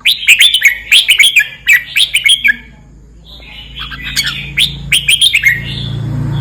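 Red-whiskered bulbul singing: two runs of quick, sweeping whistled notes with a pause of about a second between them.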